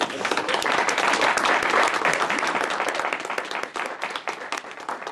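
Audience applauding, the clapping loudest about one to two seconds in and thinning out to scattered claps near the end.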